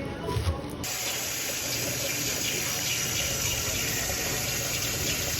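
Water running steadily from a kitchen faucet, starting abruptly about a second in, after a few soft low thumps.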